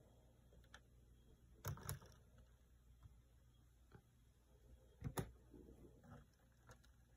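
Near silence broken by a few light clicks of fingers handling a plastic Lego model, a pair about two seconds in and a louder pair about five seconds in.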